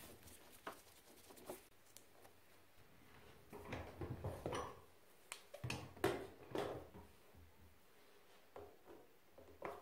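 Hand tools scraping, clicking and knocking against an aluminium motorcycle silencer held in a bench vise. The work comes in scattered light clicks, with a busier run of scraping and knocks from about a third of the way in to about two-thirds.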